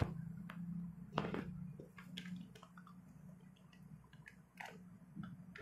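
Faint handling noises: scattered light clicks and plastic-bag rustles as scooter CVT parts and bagged clutch damper rubbers are handled, over a low steady hum.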